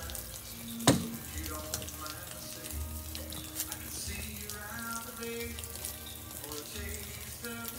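A single .22 LR rifle shot from a custom Ruger 10/22 about a second in, a sharp crack over a steady background hiss.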